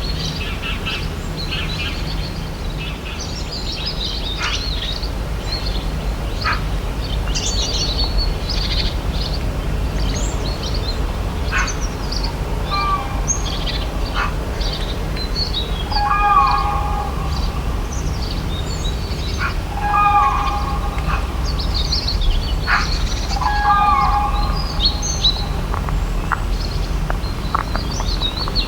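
Several birds calling and chirping at once, with many short high notes. In the second half a lower, hooked call comes four times, about every four seconds. A steady low rumble runs underneath.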